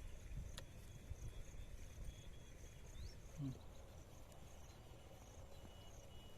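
Faint outdoor ambience: a steady high insect buzz with a couple of short rising bird chirps, over low rumbling noise. A single click comes under a second in.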